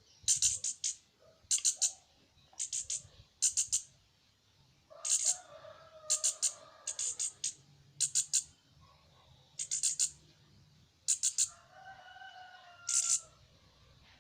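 Bird chirping: sharp, high-pitched chirps in quick clusters of two to four, repeating about once a second, with a lower drawn-out call twice.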